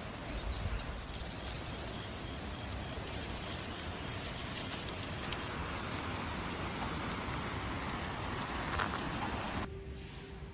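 Steady outdoor background hiss, like light rain or wind noise, with a few faint high chirps. It cuts off suddenly near the end, where soft music with held notes takes over.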